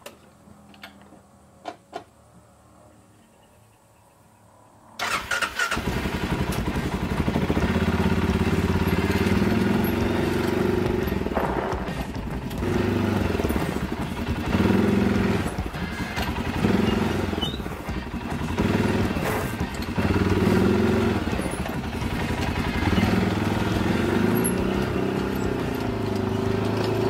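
A few light clicks, then about five seconds in the Arctic Cat Alterra ATV's engine starts and runs, its note changing repeatedly as it is throttled and the quad moves off.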